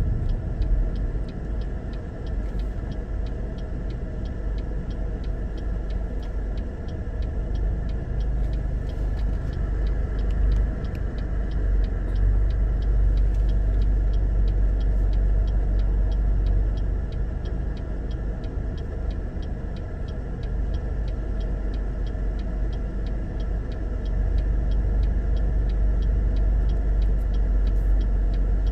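Low, steady rumble of a car idling, heard from inside the cabin, with faint regular ticking. The rumble swells about twelve seconds in and again near the end.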